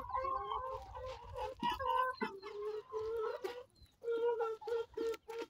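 A flock of chickens clucking as they feed on scattered corn: many short, overlapping clucks, with a few longer, drawn-out calls.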